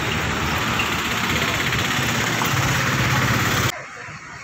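Engine idling close by amid street noise, cutting off abruptly near the end.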